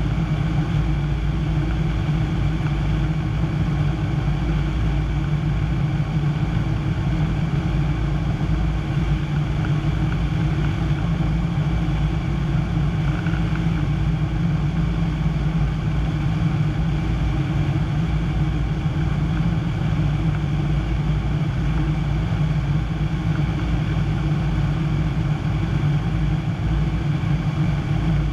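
Piper PA-25-235 Pawnee's six-cylinder Lycoming O-540 engine and propeller running steadily in flight, a continuous loud drone heard from inside the cockpit.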